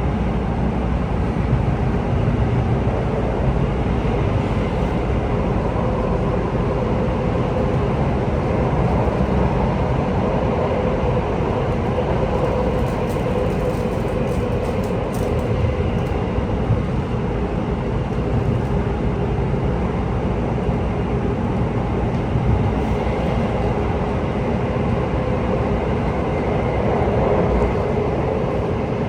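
Running noise inside an Alstom C951 metro train travelling at speed: a steady rumble from wheels on rail, with a steady hum held throughout.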